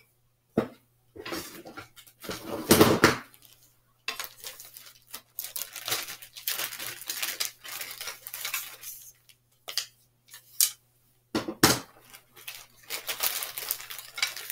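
Wooden letter-building pieces clattering and knocking together as they are sorted through by hand, in irregular bursts of rattling with scattered clicks, the loudest clatter about three seconds in.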